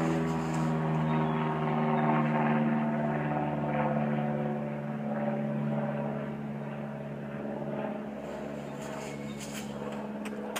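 A motor's steady drone holding an even pitch, with no gunshot clicks.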